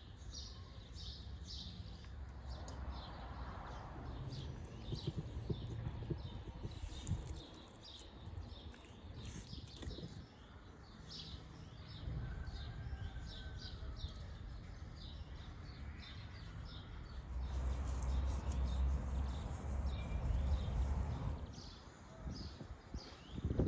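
Small birds chirping over and over, with soft knocks and handling sounds as raw lamb pieces are laid into a cast-iron pot; a low rumble swells for a few seconds near the end.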